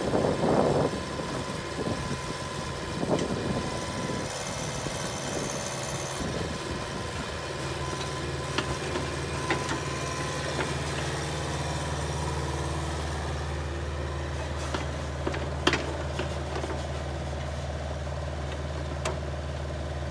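Kubota KX161 mini excavator's diesel engine running while the boom is raised and the upper house is swung around, its note evening out into a steady hum about eight seconds in. A few sharp metal clanks from the machine, the loudest about sixteen seconds in.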